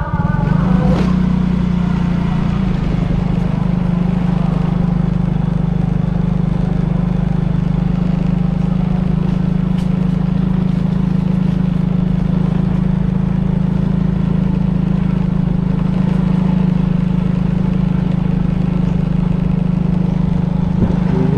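Motorcycle engine running at a steady, unchanging speed while riding, with road noise.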